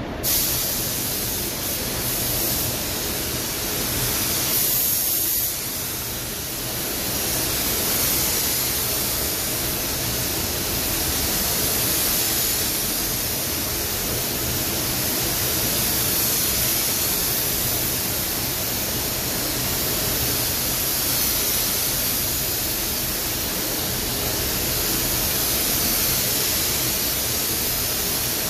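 Compressed-air gravity-feed paint spray gun hissing steadily as it atomises paint onto a car's bodywork. The hiss starts abruptly and eases off briefly about five seconds in, between passes.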